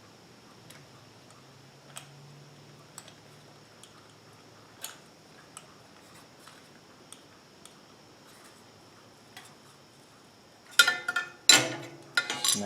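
Small metal clicks and taps, a few a second and spread out, as carburetor parts and hand tools are handled during a carburetor swap on a small engine. Near the end come loud, clattering metal knocks with a brief ring.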